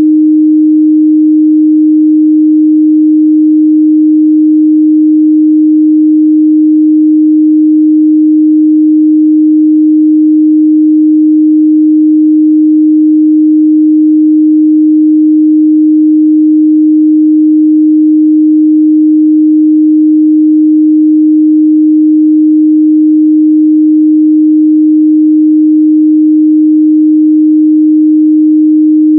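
A steady 308 Hz sine-wave test tone, one pure, unchanging mid-bass pitch, for checking speaker and headphone response.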